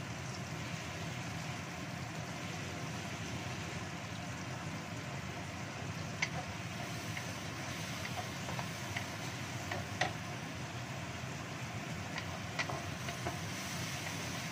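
Steady hum of a kitchen extractor hood running over spice paste sizzling in oil in a wok. A few sharp clicks of a wooden spatula knocking against the pan while stirring.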